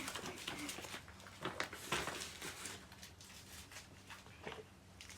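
Scattered light taps and rustles of things being handled, over a faint steady low hum in a small room.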